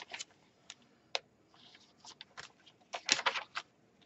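Paper pages and card inserts of a handmade junk journal being handled and turned over: scattered light taps and short rustles, with a cluster of them about three seconds in.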